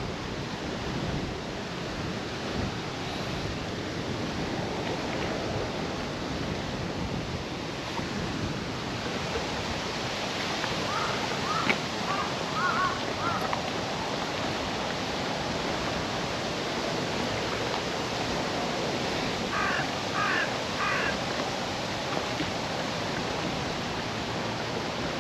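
Steady rush of wind and water. Crows caw in the distance in two bouts of three or four short caws each, about halfway through and again later on.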